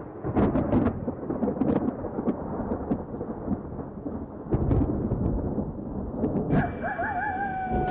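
Thunder rumbling and crackling, starting abruptly. Near the end a wavering tone comes in and slides slowly downward.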